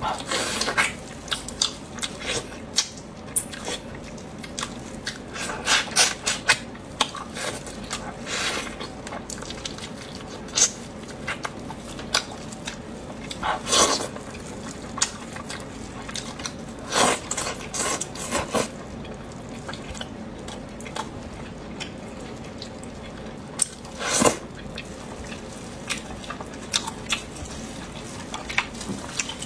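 Close-up eating sounds: wet chewing, lip smacks and sharp mouth clicks, coming at irregular moments.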